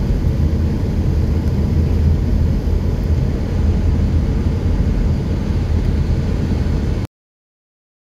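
A car driving along a paved road, heard from inside the cabin: a steady low rumble of engine and tyres. It cuts off abruptly about seven seconds in.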